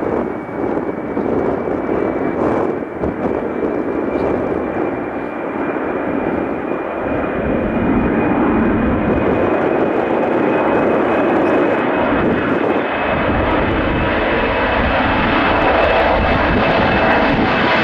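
Boeing 737-800's twin CFM56 turbofans at takeoff thrust through the takeoff roll and lift-off: a steady jet noise with a thin high whine that slowly rises in pitch, growing louder from about eight seconds in as the jet passes and climbs. Wind buffets the microphone.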